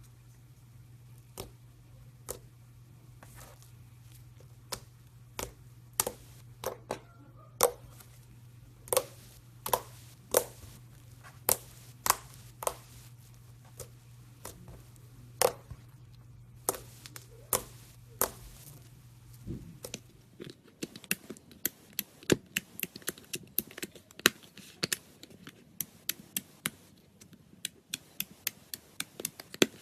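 Slime being squeezed and poked by hand, giving sharp popping clicks, one or two a second, over a low hum. About two-thirds of the way through the hum stops and the clicks come faster and more densely.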